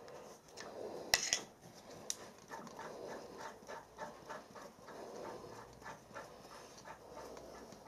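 Light handling noises on a milling machine table: a couple of sharp metallic clicks about a second in, as the T-handle hex key is set down, then a run of short light ticks while the dividing head is worked by hand, over soft rhythmic breathing-like swells.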